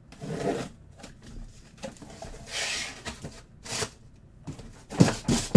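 A utility knife slicing the packing tape on a cardboard case and the case being opened, heard as short rasps, scrapes and rustles of cardboard. A few louder knocks about five seconds in as the boxes inside are handled.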